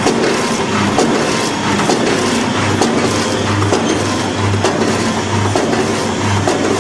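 AMS DXDK-80 automatic granule form-fill-seal packaging machine running, a steady mechanical clatter with scattered clicks. A low hum under it swells about once a second as the machine cycles through its bags.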